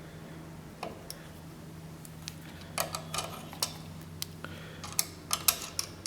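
Scattered light metallic clicks and taps from work on a bicycle front derailleur as its low limit screw is adjusted, coming more often in the second half, over a steady low hum.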